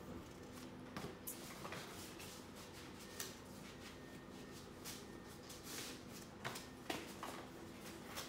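Faint rustling and light taps of a paper greeting card and gift items being handled, in scattered short bursts over a steady low hum.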